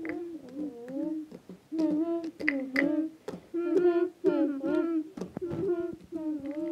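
A child humming a wordless tune in a wavering, sing-song voice, with short breaks between phrases. A few sharp clicks come through, as plastic toy horse figures are set down on a tile floor.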